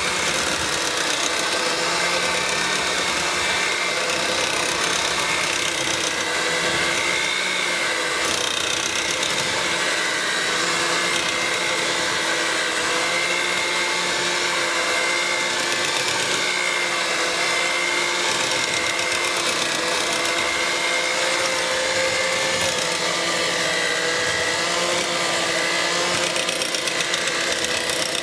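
Handheld electric mixer running steadily, its beaters whipping a thick cream-soap paste. The motor gives a steady whine that wavers a little in pitch as the beaters move through the paste.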